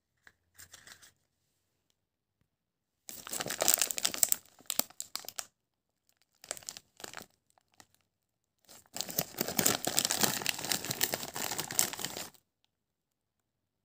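A plastic Sour Patch Kids sweets packet crinkling in the hands and being torn open, in three spells of crackling, the longest about three and a half seconds near the end.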